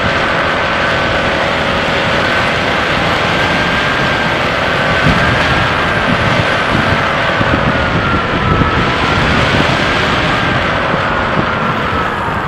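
Airflow rushing over the onboard camera of a Bixler 3 foam RC plane gliding in to land with the throttle at minimum. A steady whine drifts slowly up and down in pitch underneath the rush.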